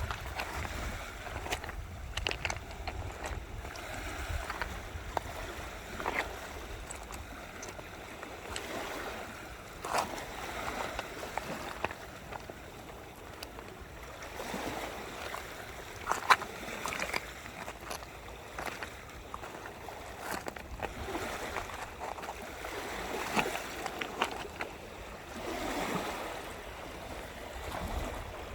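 Seawater washing and lapping at the shore, with scattered short sharp splashes. Wind rumbles on the microphone at the start and again near the end.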